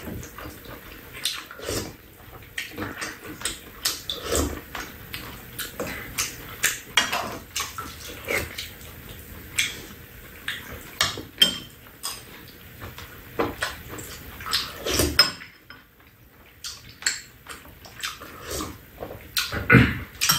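People eating: spoons scraping and clinking against a pan and bowls, mixed with chewing and lip-smacking, heard as a string of short, irregular clicks and smacks. It goes briefly quieter a little past the middle.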